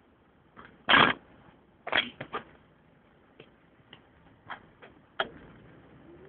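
A series of irregular sharp clicks and knocks from close by, the loudest about a second in, then a quick cluster of three and several fainter ones. Near the end a vehicle engine starts to rise in pitch, pulling away.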